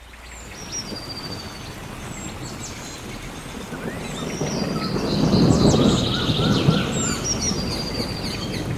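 Waterfall rushing, a steady noise that swells louder around the middle, with several birds chirping and trilling over it.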